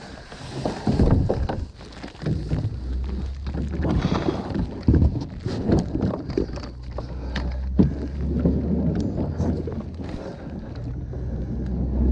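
Kayak being paddled on open water: uneven paddle strokes splashing every second or two, with wind rumbling on the microphone.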